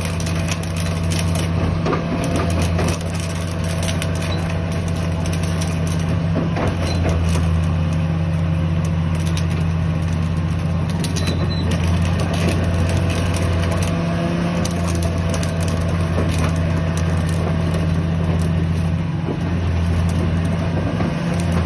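Caterpillar 330D2 crawler excavator's diesel engine running with a steady low drone, with scattered clanks and crunching knocks over it.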